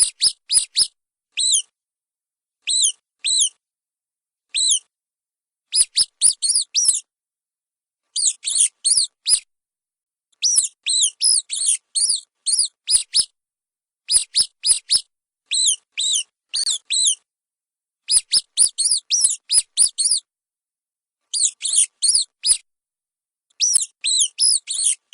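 Mice squeaking: short, high-pitched squeaks in quick runs of two to six, with brief silences between the runs.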